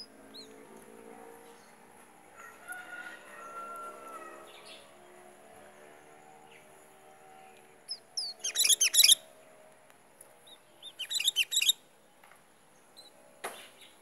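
Sooty-headed bulbul (kutilang) singing twice, each time a short, loud burst of quick, bright notes, the first about midway and the second a couple of seconds later.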